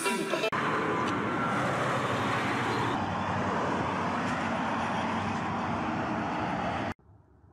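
Steady outdoor street traffic noise, an even hiss of passing cars, which cuts off abruptly near the end.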